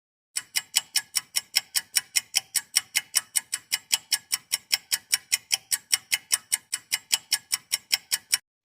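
Rapid, even ticking sound effect, like a clock or timer ticking at about five sharp ticks a second, which stops shortly before the end.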